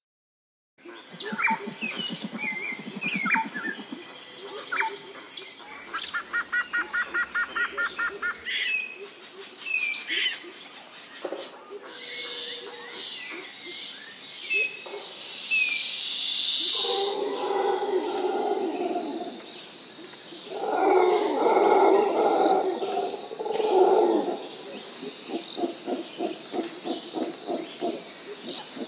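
Wild-animal soundscape that starts after a brief silence: many short bird chirps and calls, with a fast trill about six seconds in and a steady high hiss a little later. Then come two loud stretches of low, pulsing animal calls, followed by a quieter run of rapid pulses near the end.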